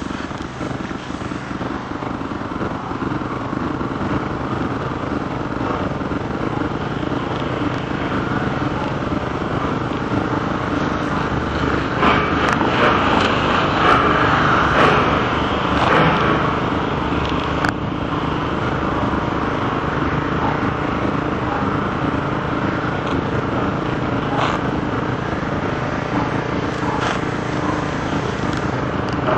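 A motor engine running steadily, swelling louder for a few seconds around the middle, with a few sharp clicks later on.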